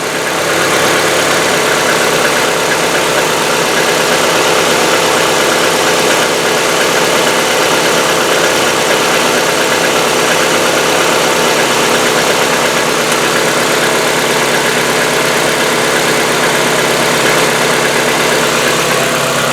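Hyundai Getz petrol engine idling after a cold start, with a fast ticking from its hydraulic lifters (lash adjusters). The ticking is the lifters knocking on the new oil before they fill, and it lasts a little shorter than it did on the old oil.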